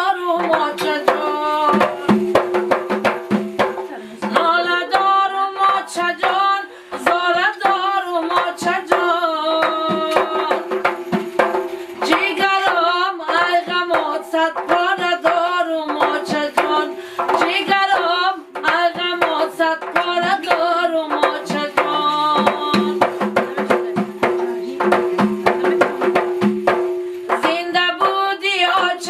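Two hand-played frame drums beating a fast, dense rhythm while a woman sings a folk song, with a steady low note held underneath.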